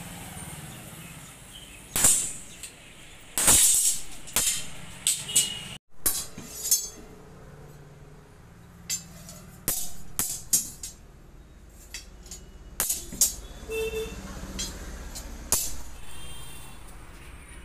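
Steel flat bars and a hand bending tool clanking and clinking against each other and the anvil: a string of irregular sharp metal knocks, a few ringing briefly after the strike.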